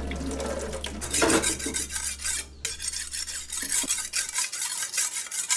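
Fast, rhythmic scraping and rubbing of a kitchen utensil, many strokes a second. A steady low hum underneath stops about four seconds in.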